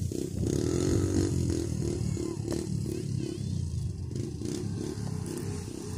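Off-road 4x4 engine revving hard in quick, repeated surges, about two to three a second, over a low rumble.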